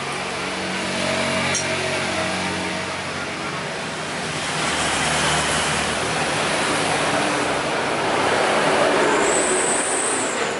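Heavy trucks and other motor vehicles passing close by on a busy highway, the engine and road noise swelling and fading as each goes by. A short high hiss comes near the end.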